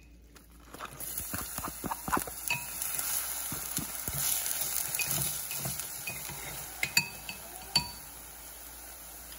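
Chopped shallots, garlic and red chili frying in hot oil in a clay pot, sizzling steadily, while wooden chopsticks stir them. Several sharp clicks of the chopsticks against the pot are heard; the loudest comes about seven seconds in.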